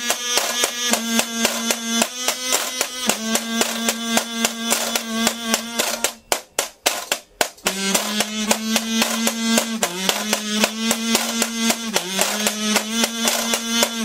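Kazoo buzzing held notes with short dips in pitch over a fast, even rhythm of washboard strokes. About six seconds in the kazoo drops out for a second and a half, leaving the washboard alone.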